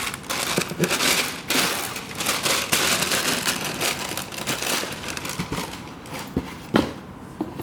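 Paper rustling and crinkling as it is handled, busiest in the first five seconds, with a single sharp knock near the end.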